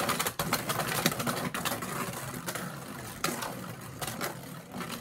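Beyblade Burst spinning tops whirring and rattling in a plastic stadium dish, with sharp clacks every second or so as they knock together. The whir fades slowly as the tops lose speed.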